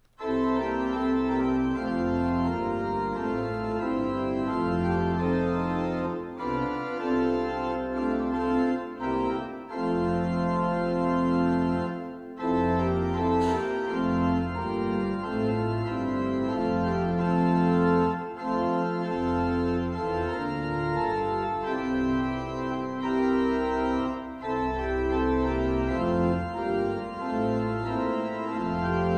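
Organ playing a hymn in sustained chords, phrase by phrase with short breaks between phrases.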